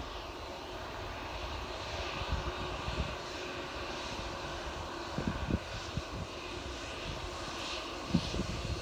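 Jet engines of a Boeing 787-8 Dreamliner running steadily as the airliner rolls along the runway.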